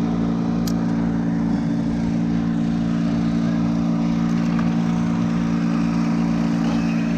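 An engine running steadily at one constant speed, without revving.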